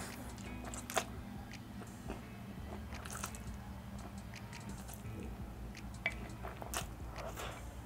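A person slurping and chewing Samyang spicy stir-fried ramen noodles, with scattered mouth clicks; sharp ones about a second in and near six seconds.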